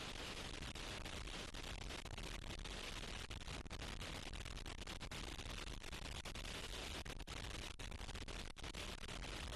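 Strong wind as a steady rushing noise that holds evenly without distinct gusts, broken only by brief dropouts.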